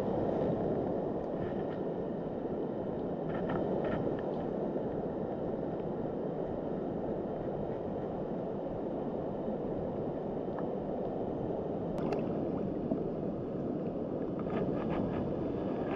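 Steady rush of flowing stream water, with a few faint short splashes or clicks over it.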